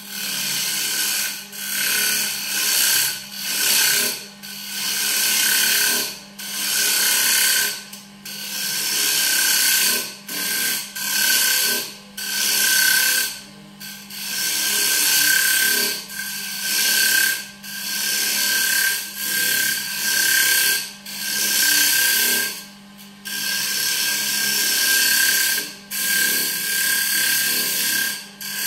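Wood lathe running with a steady whine and hum while a turning tool cuts into a spinning walnut blank in repeated strokes. Each cut is a scraping hiss of one to two seconds, with short breaks between.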